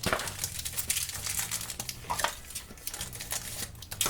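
Plastic blind-bag packaging crinkling and crackling as it is handled and opened by hand.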